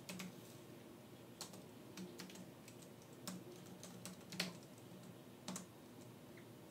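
Faint, irregular keystrokes on a laptop keyboard as terminal commands are typed, a few keys struck harder than the rest.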